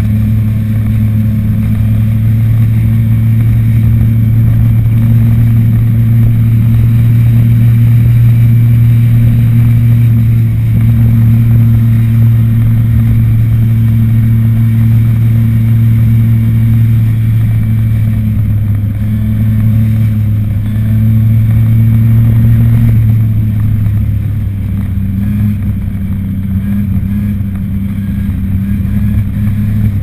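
Old moped engine running steadily under way, heard from on board as a loud, even hum. The engine note drops slightly about three quarters of the way through, then carries on.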